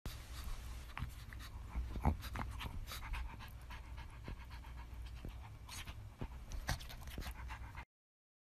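A pug breathing hard right at the microphone, with many quick short clicks over a low rumble. The sound cuts off suddenly about half a second before the end.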